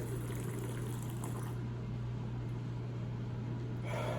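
Peach lemonade being poured from a bottle into a glass, a hiss of liquid over the first second or so, over a steady low electrical hum.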